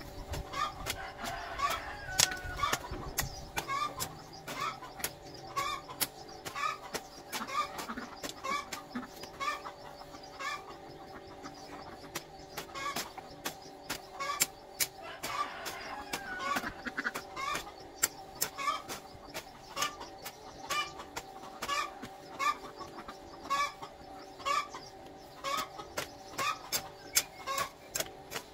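Chickens clucking at a steady pace, with frequent sharp clicks and knocks and a steady hum underneath.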